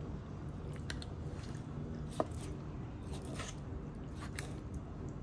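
Kitchen knife scoring raw chicken thighs on a wooden cutting board: soft, wet cutting with a few light clicks and one sharper click about two seconds in, over a low steady hum.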